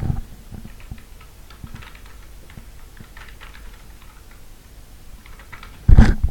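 Computer keyboard typing: scattered light key clicks as shell commands are typed, with one loud thump near the end.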